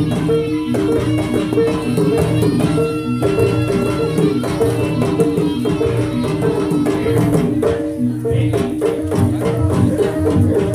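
Live jaranan gamelan music: a quick run of repeating pitched metal notes over a steady held tone and drum strokes, in an even driving rhythm.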